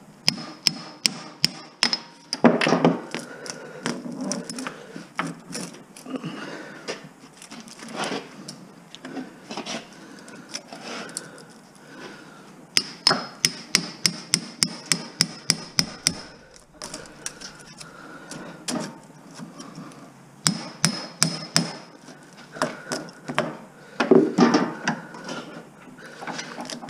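Repeated sharp metal strikes and clicks, some in quick runs of four or five a second, from a homemade copper-extractor tool being worked against a rusty electric-motor stator whose windings will hardly budge.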